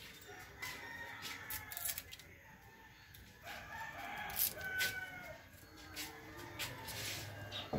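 A rooster crowing, with scattered sharp clicks and knocks.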